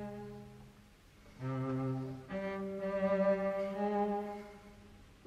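Background music of bowed strings led by a cello, playing long held notes that fade out about a second in and again near the end before new notes come in.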